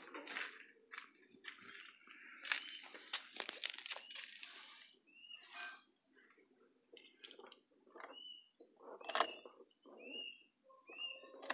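Clicks, knocks and rustling from handling the van's door and the ignition key, with no engine running. Short high chirps come several times in the second half.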